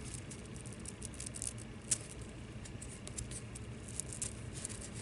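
Sheer glitter ribbon handled in the fingers, rustling faintly, with scattered small ticks and one sharper click about two seconds in.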